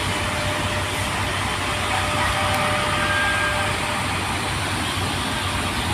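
Steady street noise of running vehicle engines, with a low hum underneath and a faint steady tone that fades out about halfway through.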